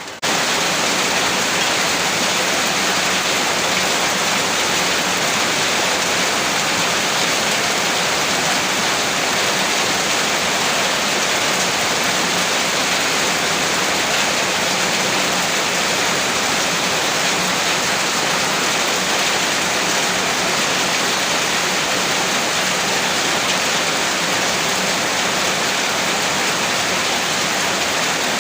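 Heavy rain falling steadily, a dense, even hiss of water with no breaks.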